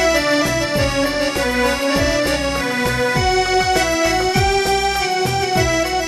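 Hymn music: a sustained, reedy keyboard-style melody over a steady low drum beat of about two hits a second.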